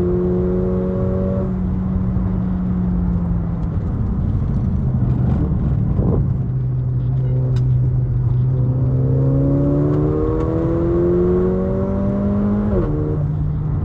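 Car engine heard from inside the cabin while driving. It runs steadily at first, then its pitch climbs for several seconds under acceleration and drops suddenly near the end at a gear change.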